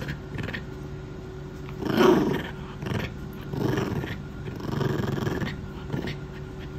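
Puppy growling while mouthing a plush toy: a series of short low growls, the loudest about two seconds in, a playful guarding of its toy.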